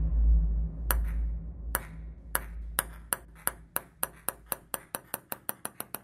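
Table tennis ball bouncing on a hard surface, the sharp clicks coming ever faster and softer as it settles. A low rumble fades out underneath during the first few seconds.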